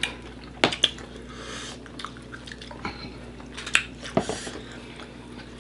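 Eating sounds of people working through chicken wings at a table: chewing, with a few sharp light clicks and taps, several near the start and a couple about four seconds in.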